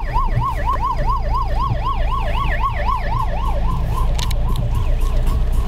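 Emergency vehicle siren on a fast yelp, wavering up and down about five times a second, then fading out a little past halfway. It is heard from inside a car over a steady low engine and road rumble.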